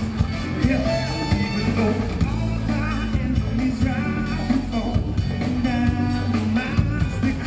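Band music with a steady beat and a strong bass line, with a melodic line gliding over it.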